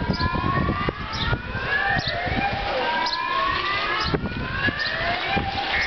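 An electronic alarm siren sounding in repeated rising whoops, roughly one a second and overlapping, over a rough rumble of wind on the microphone.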